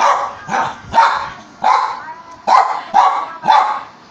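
A small long-haired dog barking, a run of about seven sharp barks at roughly two a second.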